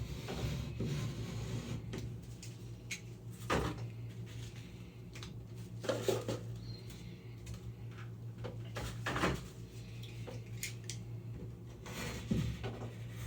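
Blade scraping and picking at loose ceiling paint and drywall, in short scattered scrapes and knocks as the loose material is cut and pulled away. A steady low hum runs underneath.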